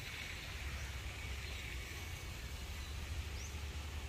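Outdoor ambience: a steady low rumble and faint hiss, with one short rising bird chirp about three seconds in.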